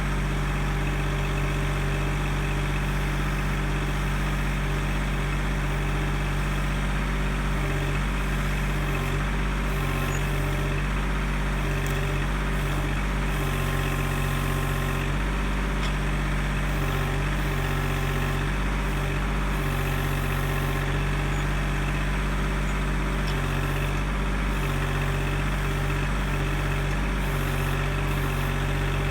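Kubota L2501 tractor's three-cylinder diesel engine running steadily at a constant speed while the backhoe works.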